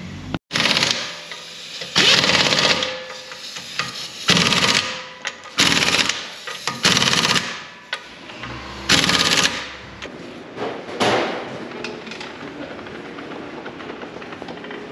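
Pneumatic impact wrench rattling on wheel lug nuts in about seven short bursts, each under a second, with pauses between them as it moves from nut to nut.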